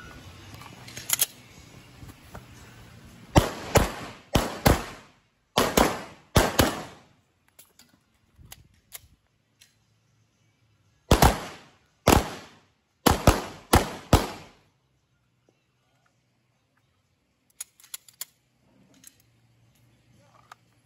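Pistol shots fired in two strings, mostly in quick pairs, with a pause of a few seconds between the strings. Near the end come a few light clicks as the pistol is handled.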